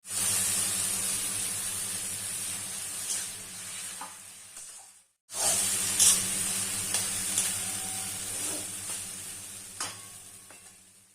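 Food sizzling in hot oil in a pan, with a few light clicks of stirring. There are two stretches, each starting loud and fading, broken by a brief cut about five seconds in.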